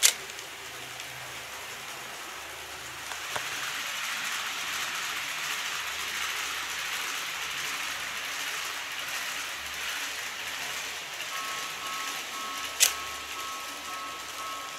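N-gauge model train running along the track with a steady rushing noise. About eleven seconds in, a model level crossing's warning bell starts, two alternating tones repeating, and a sharp click follows shortly after.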